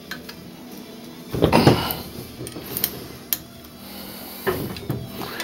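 Handling noise from an ArmaLite AR-50A1B rifle being worked on at a table: a scraping rub about a second and a half in, then a few light clicks and knocks as parts are handled.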